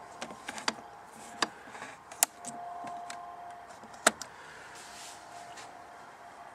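Sharp clicks and snaps of an airsoft SCAR replica rifle being handled: several small clicks in the first second and a half, then two louder snaps, about two seconds in and about four seconds in.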